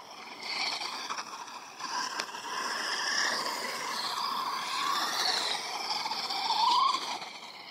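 RC truck's motor whining as it drives, its pitch rising and falling with the throttle and climbing sharply near the end.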